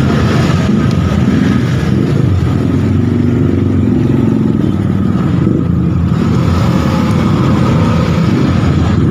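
Busy road traffic: cars and motorcycles passing in a continuous stream of engine noise.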